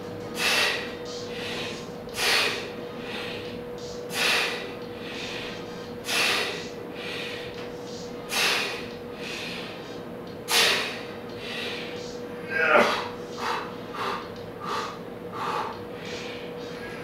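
A man breathing out hard with each rep of bar dips, one forceful breath about every two seconds. In the last few seconds the breaths come shorter and quicker.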